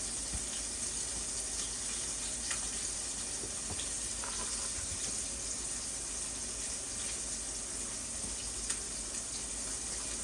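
Fish frying in a pot of hot oil: a steady sizzle with a few faint crackles and one sharper pop near the end.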